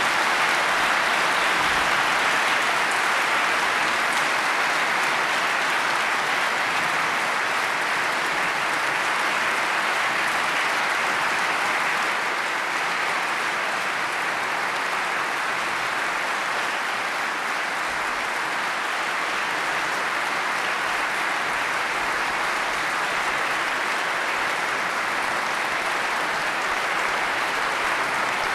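A large audience applauding steadily, the clapping sustained without a break.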